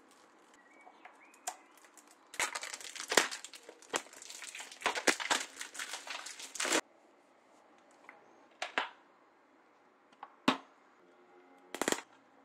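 Clear plastic bag crinkling as it is handled, for about four and a half seconds, then a few separate sharp clicks and taps from handling a plastic DVD case.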